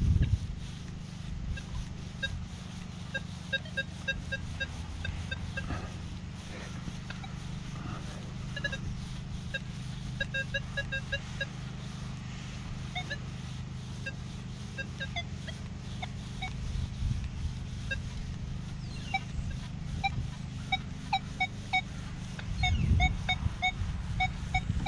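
Nokta Legend metal detector with a 6-inch coil giving runs of short, choppy beeps as the coil sweeps over buried metal. The beeps come in short runs at a couple of different pitches, the sound of a junky target. A steady low hum and a few low thumps lie underneath.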